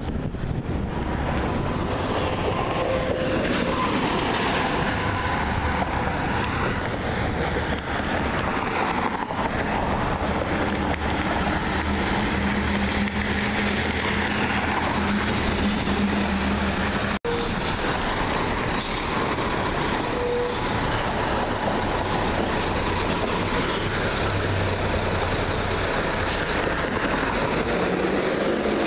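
Diesel engines of rear-loader garbage trucks running as they drive past on a city street, along with passing traffic, with the nearest truck going by close near the end. The sound drops out briefly about two-thirds of the way through.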